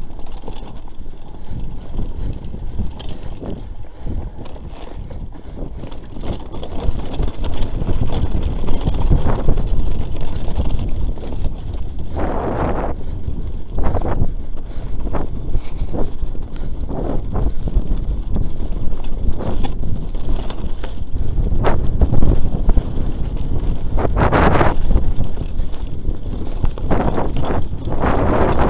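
Wind buffeting the microphone in a loud, uneven rumble, with short noisy gusts every few seconds, growing stronger about a third of the way in.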